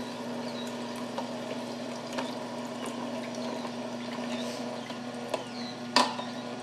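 Horizontal masticating juicer running with a steady low hum as grapefruit and pineapple are pressed down its chute with a plastic plunger, with small wet crackles of fruit being crushed. A sharp knock about six seconds in.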